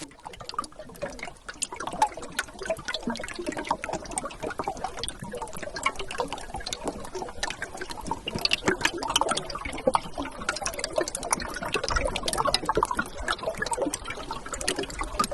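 River water gurgling and trickling, a dense, steady patter of small splashes.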